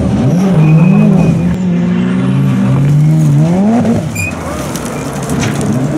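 Rallycross car engine running hard on the dirt section, its pitch rising and falling with the throttle and gear changes. Near four seconds in it climbs steeply, then drops and runs quieter for a moment before picking up again.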